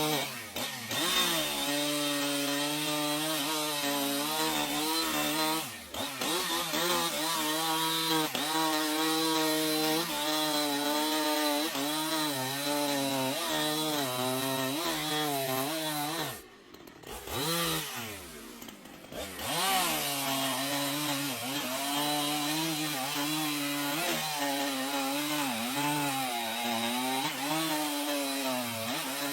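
Chainsaw running while cutting wood, its engine pitch wavering with the load. The revs fall away briefly about six seconds in, and again for a few seconds past the middle, before picking back up.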